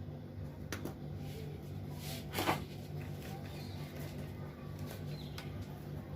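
A steady low hum with a few light clicks and one brief rustle about two and a half seconds in: small handling noises at a repair bench.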